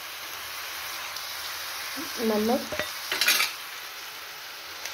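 Chopped jackfruit and onions frying in a little oil in a steel kadhai, a steady sizzle. A click and a brief rattling scrape of the spoon come about three seconds in.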